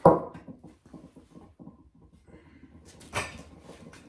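A sharp metal clank with a short ring, then scattered small knocks and rattles, and another clatter about three seconds in: the bare scooter frame being handled and shifted on a concrete floor.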